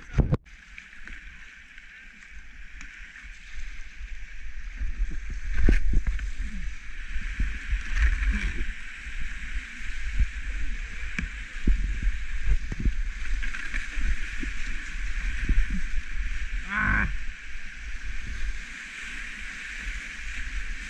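A whitewater kayak running a river rapid: the steady rush of the rapid, with paddle strokes splashing and water sloshing against the hull. It grows louder from about four seconds in as the boat moves into the white water.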